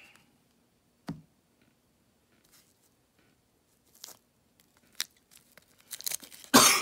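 A few faint clicks and rustles of handling, then near the end a loud burst of crinkling and tearing as the wax paper wrapper of a 1989 Donruss baseball card pack is torn open.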